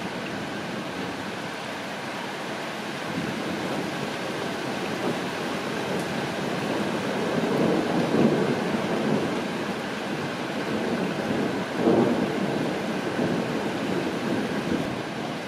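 Steady rain with rolling thunder, the rumble building to a peak about halfway through and swelling again a few seconds later.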